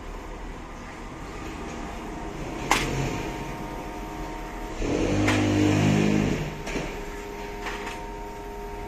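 Truck-mounted knuckle-boom crane with its hydraulics running, a steady whine over the truck's engine. There are sharp metallic knocks a little under three seconds in and again around five seconds in, and the sound grows louder for about a second and a half in the middle as the boom works the brick grab.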